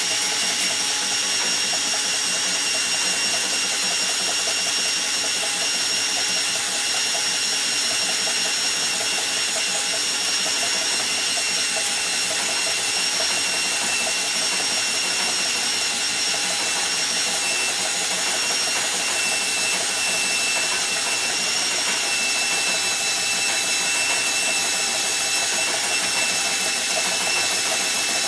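Makita cordless drill running steadily with a high whine, turning a spool that reels magnet wire off a coil spinning on bearings.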